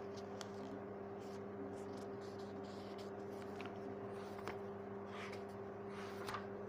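Quiet room tone: a steady low electrical hum with a few faint clicks.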